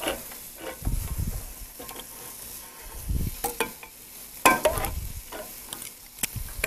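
Hand can opener being worked around the rim of a metal can, giving scattered clicks and clanks with a few dull knocks. Under it, chicken pieces sizzle steadily in a frying pan.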